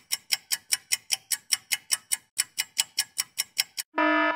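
Countdown-timer sound effect: rapid, even clock ticks, about five a second, then a buzzer tone starting near the end to signal that time is up.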